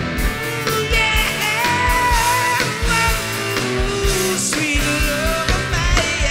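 Rock band music with a steady drum beat and electric guitar, and a singer's voice coming in about a second in.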